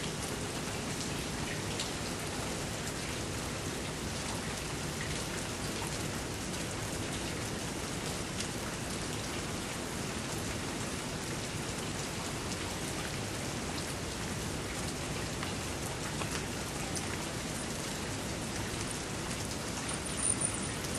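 Steady rain falling, an even hiss with a few sharper drop ticks.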